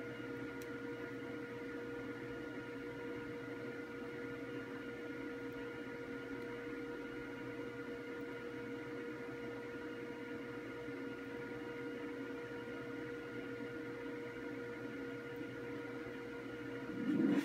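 Steady electrical hum made of several fixed tones over faint room noise, with a short muffled bump just before the end.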